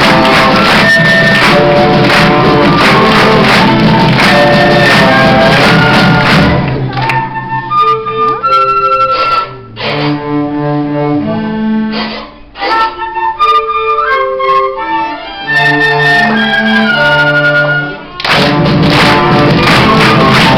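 A school orchestra and children's choir playing a huayno. The full ensemble drops about six seconds in to a thinner passage of separate held instrumental notes, then comes back in full near the end.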